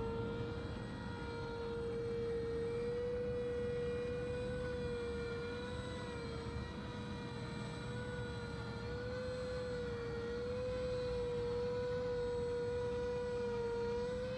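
Electric motors and propellers of a battery-powered V-22 Osprey RC tiltrotor in flight, a steady high whine whose pitch wavers gently up and down.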